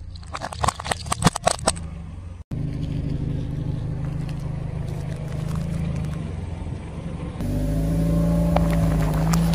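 Car tyre rolling over hard plastic and crushing it, a rapid run of cracks and snaps for about two seconds. Then the car's engine running steadily as the tyre squashes softer things, with a few faint crackles, getting louder near the end.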